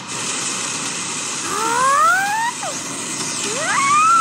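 A steady rushing noise with a child's voice rising in a wail twice over it, the second climbing steeply and then held.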